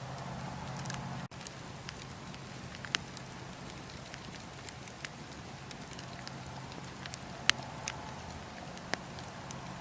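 Bonfire crackling, with sharp pops at irregular intervals over a steady low hiss of burning; the loudest pop comes about seven and a half seconds in.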